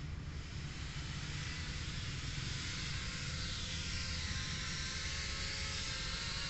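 FPV quadcopter's motors and propellers whining, getting a little louder and wavering up and down in pitch as it comes in low and close, over a steady low rumble.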